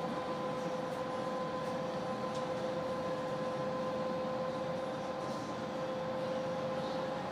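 Yutong E12 battery-electric bus under way, heard inside the cabin: a steady electric drive whine over road and tyre noise.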